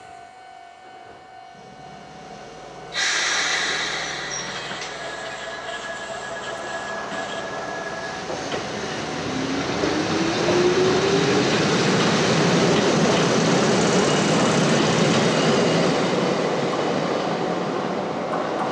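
Izuhakone Railway 5000-series electric train pulling away from a standstill. About three seconds in, wheel and track noise starts suddenly, and a motor whine rises in pitch as the train picks up speed. The running noise then grows loud and eases off a little near the end.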